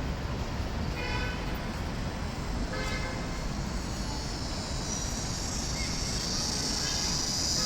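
City street traffic rumbling steadily, with two short car horn toots, one about a second in and another about three seconds in. A high hiss builds near the end.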